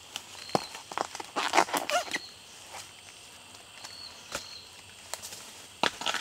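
Crackling and rustling of dry bamboo leaves, with sharp knocks, as bamboo shoots are cut and tossed into a woven back basket. There is a busy cluster of sounds between about one and two seconds in, a single knock a little past the middle, and another cluster near the end.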